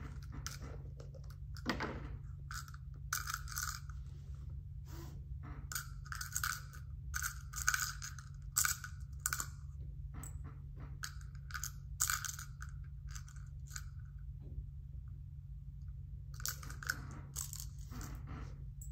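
Small plastic pegs clicking and clattering against each other as they are pulled out of a pegboard and handed over, in short irregular bursts with a quieter stretch about three-quarters through.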